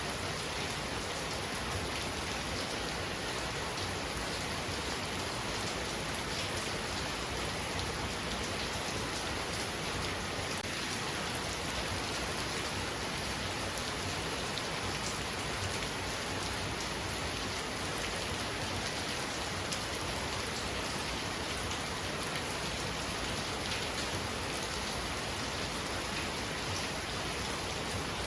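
Heavy rain falling steadily, a dense even hiss with many fine drop hits.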